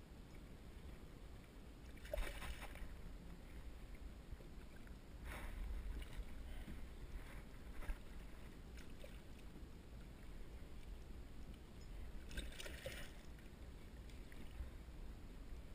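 A hooked catfish splashing at the surface and a landing net going into the water beside a kayak: several short, splashy bursts over a steady low rumble.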